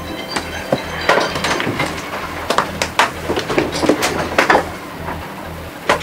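Irregular knocks, clatters and creaks inside a sailing yacht's cabin as the boat is thrown about by a rough sea, over a steady low hum.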